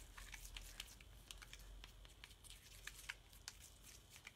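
Faint, irregular small clicks and scrapes of a stir stick working thick chalk paste in a small plastic mixing tray.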